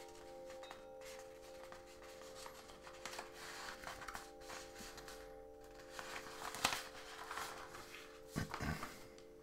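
Soft close-up rustling and handling sounds with a sharp click about two-thirds of the way in and a couple of low knocks near the end, over a steady ambient music drone.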